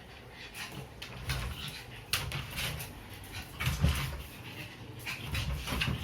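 A pug puppy moving about and making small dog noises: irregular short noisy sounds with a few soft thumps.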